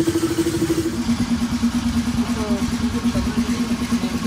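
A motor or engine running with a steady hum, dropping to a lower pitch about a second in and holding there over a low rumble.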